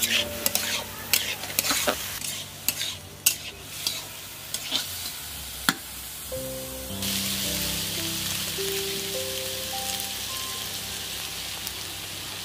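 Chopped vegetables frying in oil in a pan, stirred with a spatula that scrapes and knocks against the pan many times in the first few seconds; after that a steady sizzle.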